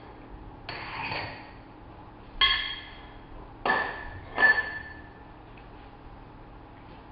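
A 5/8-inch mild steel tube being bent in a Baileigh RBD25 manual rotary-draw pipe bender. There is a creak about a second in, then three sharp metallic clanks, each with a short ringing tone; the last two are the loudest.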